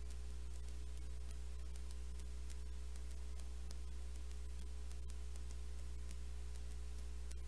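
Steady low electrical hum with a buzz of evenly spaced overtones, under a hiss of static with faint scattered clicks.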